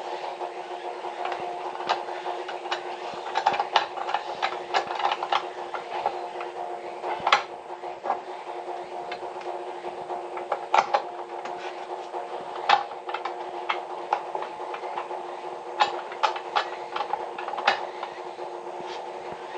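A steady hum with several held tones, overlaid by irregular sharp clicks and light knocks, a few of them louder than the rest.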